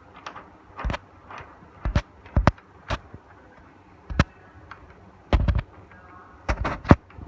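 Screwdriver tightening the fixing screw of a door lock cylinder: a series of sharp, irregular clicks and knocks of metal tool on lock and door hardware, some in quick clusters.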